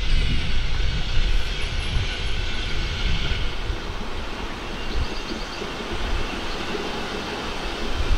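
Narrow-gauge steam train running on the Isle of Man Steam Railway, a steady rumble of the locomotive and its carriages rolling along the track.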